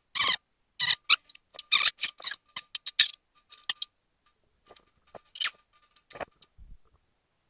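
Irregular clinks and knocks of metal being handled, some with a brief ring, as an aluminum door skin is shifted and propped at an angle.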